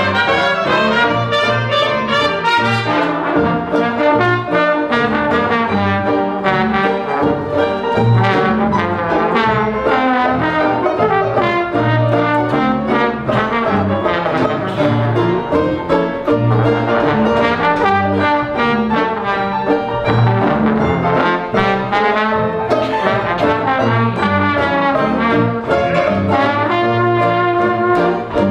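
Live Dixieland jazz band playing: trombone out front over clarinet, string bass, banjo and piano.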